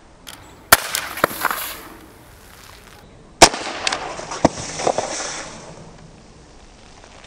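Two shots from a Beretta 84FS CO2 blowback air pistol, a little under a second in and again about three and a half seconds in, each a sharp crack followed by a second or so of smaller clicks and clatter.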